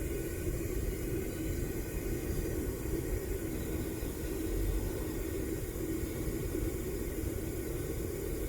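Homemade propane furnace's burner running with a steady low rumble, mostly deep sound with no breaks.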